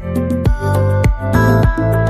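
Background instrumental music with a steady beat, a little under two beats a second.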